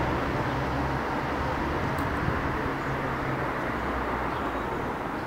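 Steady road-traffic noise: a low rumble with hiss, easing slightly toward the end.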